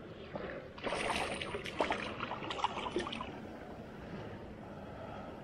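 River water lapping and trickling against shoreline rocks. About a second in, a louder stretch of splashing and clicking runs for about two seconds before it settles back to a steady wash.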